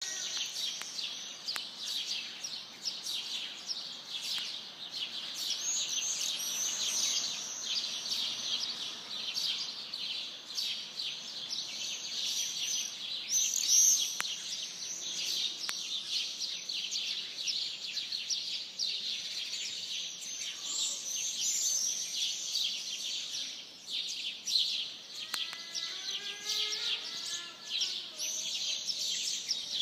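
A large flock of birds in a palm tree chirping and twittering densely and without pause, many high calls overlapping. Near the end a lower, arching call repeats several times over the chatter.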